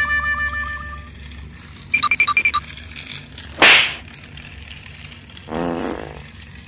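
The tail of background music fades out in the first second. Then come added sound effects: a quick run of about five short high beeps, a loud whoosh a little past halfway, and a shorter, lower noisy sound near the end.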